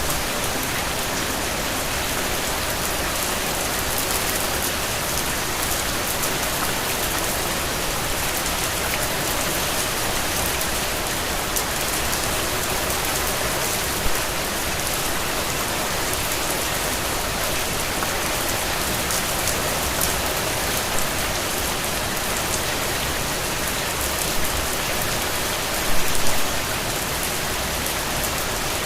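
Steady rain falling, with dense drops pattering on a surface and a few louder drop hits now and then.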